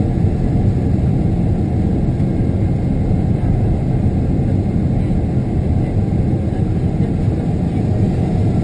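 Steady low rumble of a Boeing 777-300's engines and airflow heard inside the passenger cabin during the approach to landing, even throughout with no distinct events.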